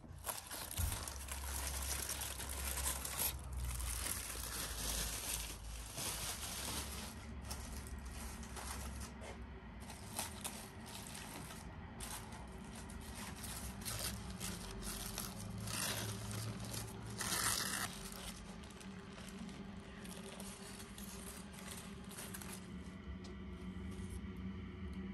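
Aluminium foil crinkling and rustling as a foil packet is pulled open by hand, dense and irregular at first and thinning out over the last several seconds.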